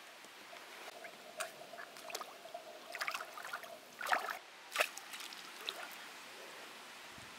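Bare feet wading into shallow lake water: a run of uneven splashes and sloshes, the two loudest a little after four seconds and near five seconds in.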